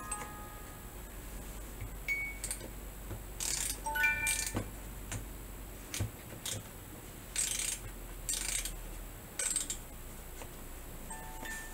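A wooden music-box photo frame being handled while its tune is stopped: a few stray plucked notes from the music-box comb, then about four short scraping bursts from its mechanism being worked by hand.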